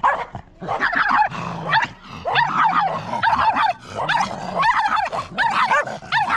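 Cocker spaniel puppy yipping and whining in a quick string of short, high cries.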